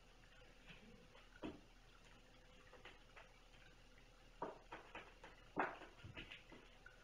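Kittens playing: faint, irregular taps, scuffles and soft knocks, one about a second and a half in and a cluster over the last three seconds.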